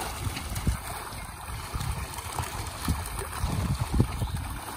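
Fish thrashing in a crowded seine net in shallow pond water: irregular splashes and sloshing, with a louder splash about four seconds in.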